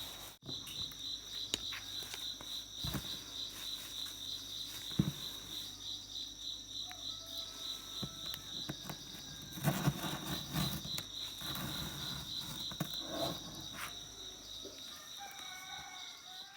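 Insects trilling steadily in a fast high pulsing chirp, with occasional knocks and rustling handling sounds, busiest about ten seconds in.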